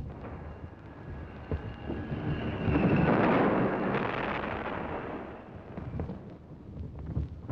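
A deep rumbling noise on an old film soundtrack, swelling to a peak about three seconds in and then dying away.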